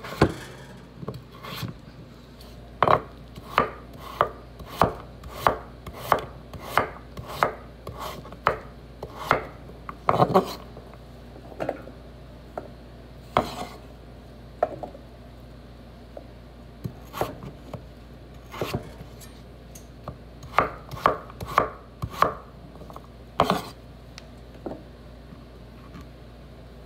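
Kitchen knife chopping a peeled potato on a wooden cutting board: sharp knocks of the blade on the board, often one to two a second, breaking off briefly now and then and stopping near the end.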